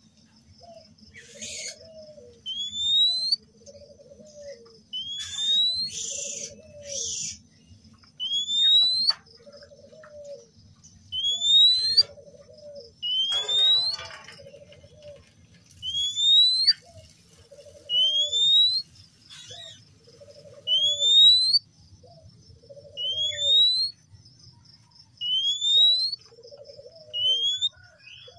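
Male oriental magpie-robin singing a rising whistle over and over, about one every two seconds, each paired with a lower note, with a few harsh scratchy notes mixed in. A faint steady high trill runs underneath.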